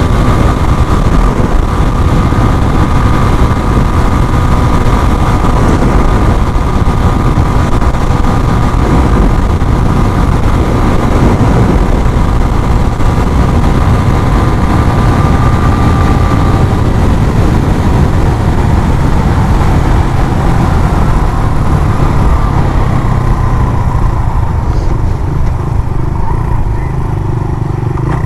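A 150cc single-cylinder motorcycle running at road speed, heard from a handlebar-mounted action camera, with heavy wind rush on the microphone over the steady engine note. The wind and engine ease in the last few seconds as the bike slows.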